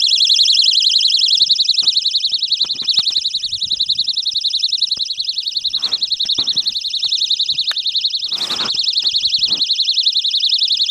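A loud, high-pitched buzz pulsing rapidly and evenly, with soft clicks and rustles beneath it and a short hiss about eight and a half seconds in.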